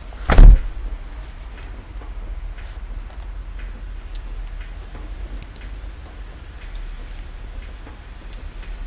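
Metal tags on a dog's collar jingling as the dog bounds and digs in snow, over a steady low rumble. A single loud thump about half a second in.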